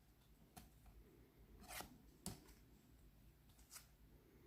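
Near silence with a few faint, brief rustles and taps of tarot cards being handled and slid off the deck one at a time.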